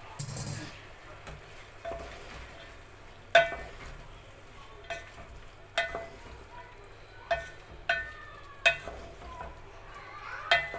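Wooden spatula stirring chopped capsicum and masala in a metal pot over a faint frying sizzle, knocking against the pot about seven times so that it rings briefly each time. A short hiss comes just after the start.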